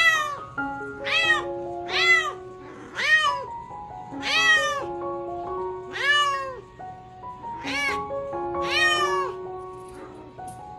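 Cat meowing over and over, about eight meows roughly a second apart, each rising then falling in pitch. Background music with a simple stepping melody plays throughout.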